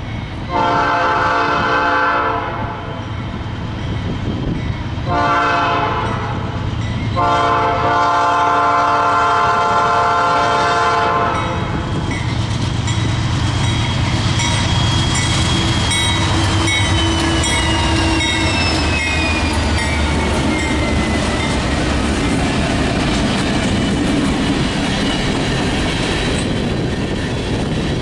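Locomotive multi-chime air horn sounding three blasts (long, short, then a longer one) as a train approaches, followed by the train rolling past with steady rumble and wheel clatter and a slowly falling whine partway through.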